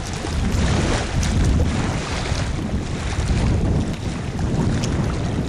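Strong wind buffeting the microphone in uneven gusts, over the rush of wind and choppy lake water.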